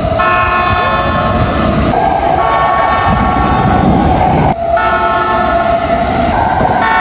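Japanese commuter train horns sounding over the rumble of the approaching trains, in several short blasts of steady layered tones that change abruptly about every two seconds as one horn gives way to another.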